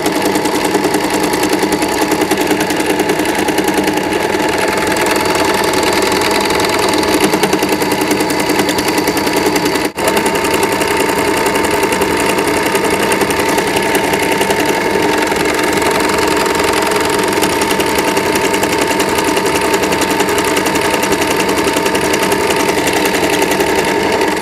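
Small electric sewing machine running steadily with a fast, even rhythm of needle strokes. Its needle, a filed-down nail with the bobbin assembly removed, is punching rows of holes through fused plastic-bag sheet. There is a brief break about ten seconds in.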